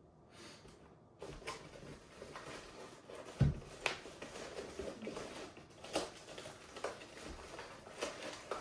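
Hands rummaging inside a fabric tool bag, working an item loose: continuous rustling with a few sharp clicks and a dull thump about three and a half seconds in.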